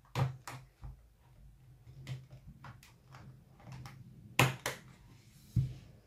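Irregular sharp clicks and snaps as a thin plastic pry card is worked under the edge of a Lenovo Miix 720 tablet's glass screen to release it. The loudest are a close pair of snaps past the middle and one more just before the end.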